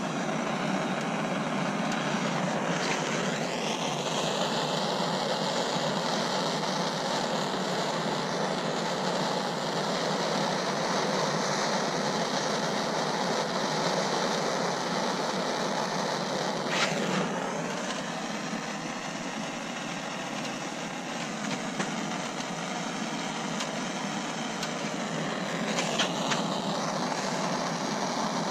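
Handheld gas torch burning with a steady hiss while its flame heats a steel wire speaker grill, scorching the grill's paint. A few sharp metallic clicks come through, about three seconds in, past the middle and near the end.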